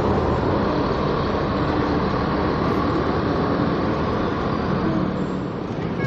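Mercedes-Benz OH 1626 coach's diesel engine running steadily as the bus pulls away, over a steady traffic rumble.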